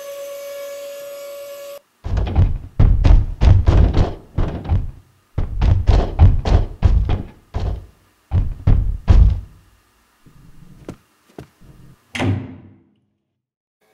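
Rapid heavy footsteps running up a staircase, about three thumps a second, easing into a few softer steps. A door shuts with a thump near the end. A steady high-pitched tone plays at the start and cuts off about two seconds in.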